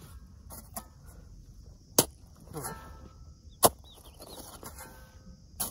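Hand hoe chopping into dry soil: three sharp strikes about two seconds apart, the second the loudest.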